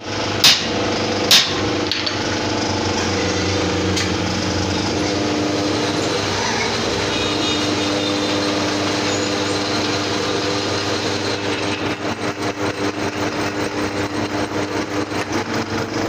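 Metal lathe running steadily, turning a tubewell pump shaft, with two sharp clicks about half a second and a second and a half in. Near the end the sound takes on a fast, even pulsing, about five or six beats a second.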